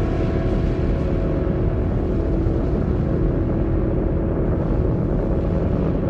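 Steady deep rumble of the Nyiragongo volcano in a field recording, with a single low drone tone held over it as part of an ambient music piece.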